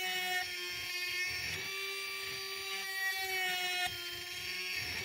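Small 12 V brushed DC motor of a homemade mini drill press running with a steady high whine, its pitch dipping slightly a couple of times as the fine bit is fed into a wooden popsicle stick.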